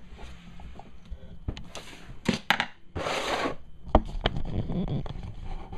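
Plastic knocks, clicks and a short scraping rush from a plastic Beyblade stadium being handled on a wooden floor, with a sharp knock about four seconds in followed by a spell of rattling.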